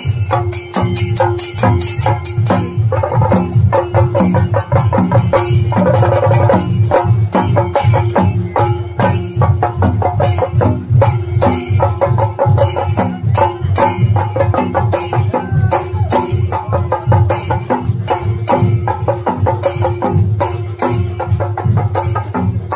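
Chenda melam: chenda drums beaten with sticks in a fast, dense, unbroken rhythm, with a steady held note sounding over the drumming.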